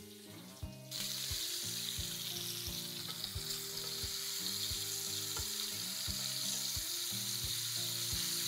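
Floured hake pieces sizzling in hot oil in a frying pan, a steady hiss that sets in about a second in.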